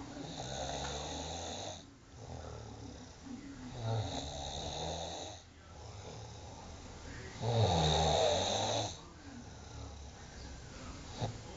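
A sleeping person snoring: three long snores about every four seconds, the third the loudest, with quieter breaths between them.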